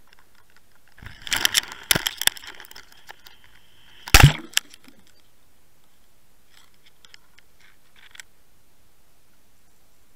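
Knocking and crackling noise picked up by an underwater camera: a burst of sharp clicks and cracks, then one loud thump about four seconds in, and a few faint clicks a few seconds later.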